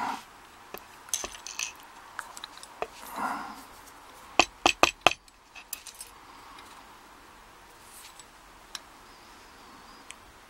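Small metal parts and tools clinking and clicking against each other and the bench as a brass padlock is taken apart, with a quick run of four sharp clicks about halfway through.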